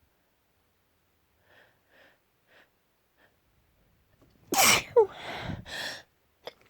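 A person sneezes hard about four and a half seconds in: a sharp burst with a falling voiced cry, trailing off in a breathy exhale. A few faint short breaths come before it. This is one sneeze in a sneezing fit, and the next one follows straight after.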